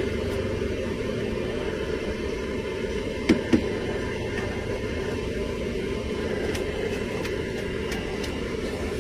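Noodles being cooked in a steel pot of boiling water, with a steady low rumble of background noise. About three seconds in come two sharp knocks, as the utensils strike the pot.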